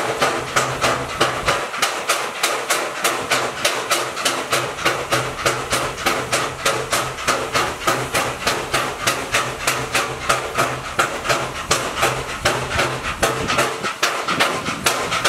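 Steam locomotive exhaust chuffing in a quick, even rhythm as it pulls the train, over a steady low hum.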